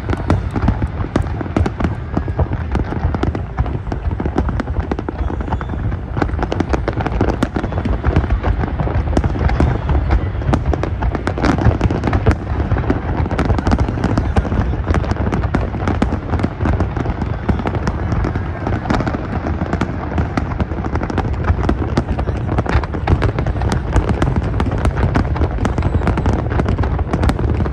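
Large fireworks display in a dense, continuous barrage: many overlapping bangs in quick succession with no pause.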